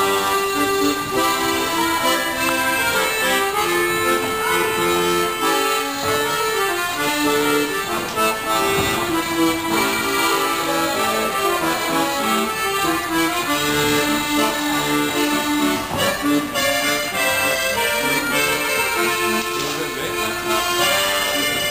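Accordion playing a dance tune, its melody stepping from note to note without a break.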